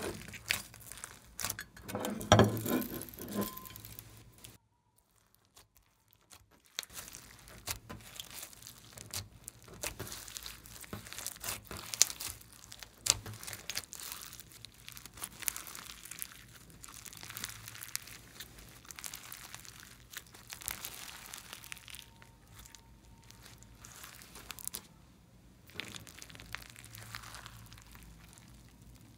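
Slime mixed with foam beads and sequins being squeezed, kneaded and stretched by hand: dense crackling and popping. The loudest stretch comes about two seconds in, and there is a short near-silent gap about five seconds in.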